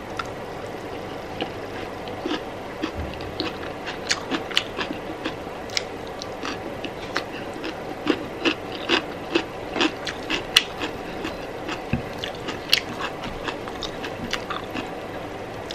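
A person chewing a mouthful of rice and curry, with many quick, irregular wet mouth clicks and smacks, over a faint steady hum.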